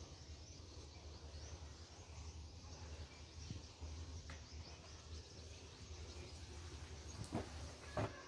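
Faint outdoor background noise: a steady low hum with faint high chirps, and two short knocks near the end.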